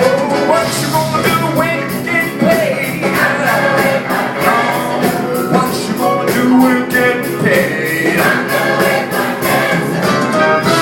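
Live gospel music: a choir and band playing over a steady beat, with singing.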